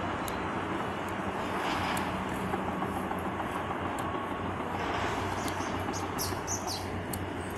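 Steady low mechanical rumble of a harbour with a faint droning hum, and a few faint high chirps near the end.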